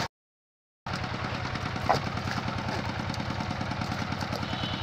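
A small engine running steadily with an even chug, about ten beats a second, starting just under a second in after a brief dropout; a short call cuts through about two seconds in.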